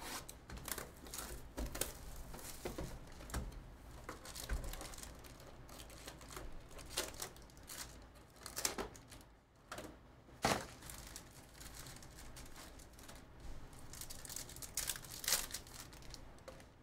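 Panini Flux basketball card box being opened and its foil packs handled and ripped open: irregular crinkling and tearing of the wrappers.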